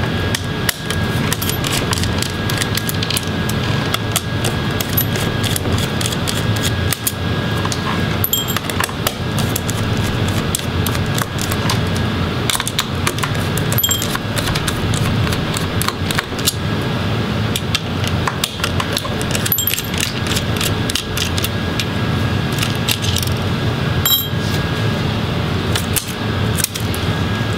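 A screwdriver backing small screws out of a laptop motherboard: frequent light metal clicks and clinks, scattered irregularly, over a steady background hum.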